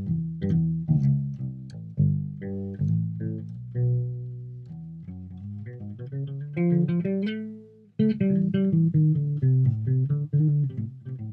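Homemade passive P/J electric bass with flatwound strings, played through an amp and picked up by a laptop mic: a line of plucked bass notes, with a brief stop just before the eight-second mark before the playing picks up again. The flatwounds give little string noise and there is no buzz.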